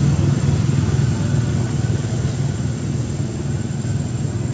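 A motor vehicle engine idling steadily, a low rumble with a thin high whine above it.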